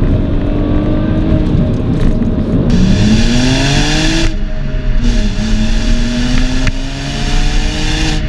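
BMW E90 330i's naturally aspirated 3.0-litre straight-six pulling hard through the gears, its exhaust note rising in pitch as the revs climb, dropping sharply at an upshift about four seconds in, then climbing again until another drop near the end.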